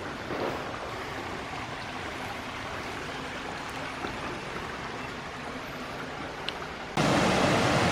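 Rushing water of a river and waterfall, a steady hiss; about seven seconds in it suddenly becomes much louder and closer.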